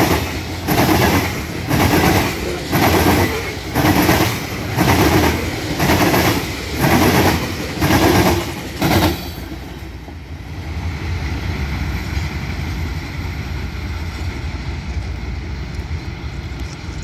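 Hopper cars of a freight train rolling past, their wheels clacking in a steady rhythm about once a second. About nine seconds in the last car goes by and the clacking stops, leaving a steady low rumble and hiss.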